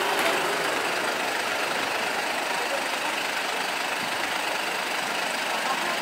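Mercedes-Benz Sprinter 516 CDI minibus's four-cylinder diesel engine idling steadily.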